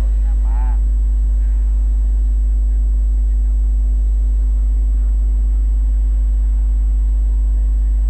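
Steady low-pitched hum with a fainter steady tone above it, unchanging throughout.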